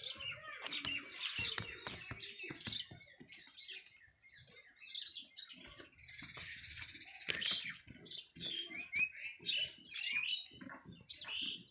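Birds chirping in many quick, short, high calls throughout, with soft low knocks and rustles underneath.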